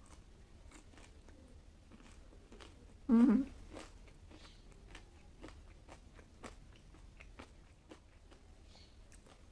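Crunching of a crispy deep-fried chicken pakora being bitten and chewed, a scatter of short sharp crackles throughout. A brief vocal sound from the eater about three seconds in is the loudest moment.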